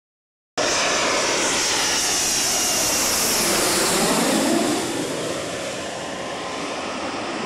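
Panavia Tornado's twin RB199 jet engines as the jet passes low overhead: a loud rushing whine with a rumble that cuts in abruptly, sweeps in pitch as the aircraft goes over, then eases a little after about five seconds.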